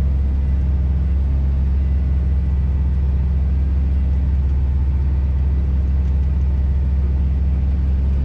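Scania truck's diesel engine pulling uphill on a snowy road, heard from inside the cab: a steady low drone that holds one pitch throughout.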